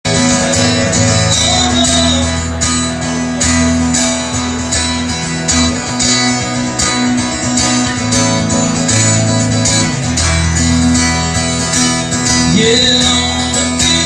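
Live acoustic country music: two acoustic guitars strummed steadily with a voice singing, played loud through a small bar's PA.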